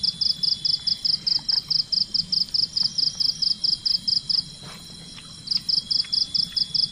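Insect chirping in loud, even pulses, about six a second, breaking off for about a second past the middle and then starting again. A fainter, steady high whine, likely another insect, runs beneath it.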